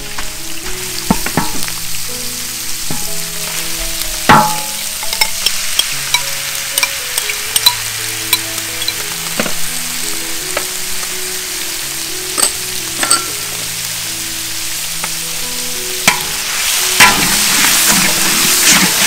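Food sizzling as it fries in a hot pan, stirred with a utensil that clicks and knocks against the pan every few seconds. The sizzle grows louder near the end.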